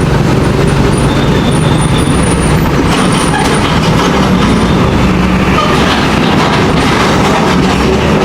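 Heavy road traffic, trucks and buses, passing close by: a loud, steady engine hum and tyre noise without a break.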